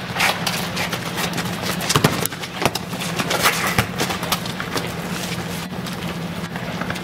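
Footsteps and shoe scuffs of players running on an asphalt court, with a few sharp knocks of a football being kicked, the strongest about two seconds in and again just before four seconds.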